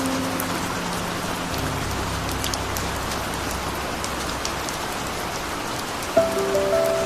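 Steady rain with scattered drop ticks, under soft sustained low music tones. About six seconds in, a melody of clear notes begins over the rain.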